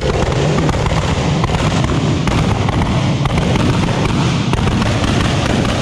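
Turbocharged car doing a burnout: the engine is held at high revs while the rear tyres spin, and the exhaust crackles and pops rapidly throughout.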